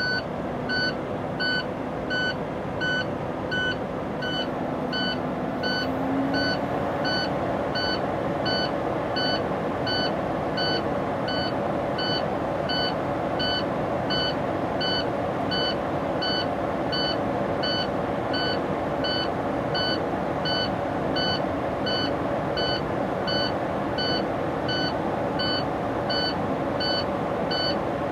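Truck's low-air warning buzzer beeping steadily, about two short beeps a second, over the tractor's diesel engine held just above idle. The engine picks up about six seconds in. The beeping signals that air-tank pressure is still below the low-air warning level while the compressor builds it back up.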